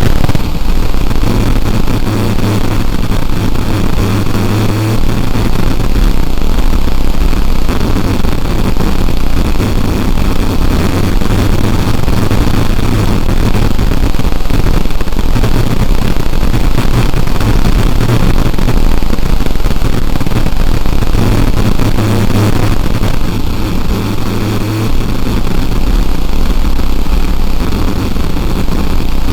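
Loud, continuous harsh noise with a heavy low rumble, dense across all pitches and hardly changing throughout.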